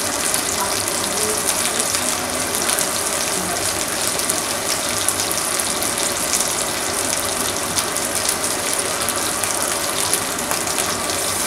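Beef roast sizzling in hot fat in a metal roasting pan, a steady sizzle thick with fine crackles and pops.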